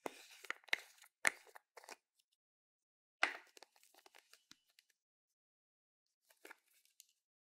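Slime being squished and worked by hand, crackling and popping in short bursts, with a sharp pop about three seconds in followed by a run of crackles, then a pause and a few faint crackles near the end.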